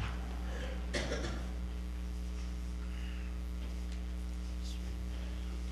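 Steady low electrical mains hum carried through the microphone and recording chain, with a short faint sound about a second in.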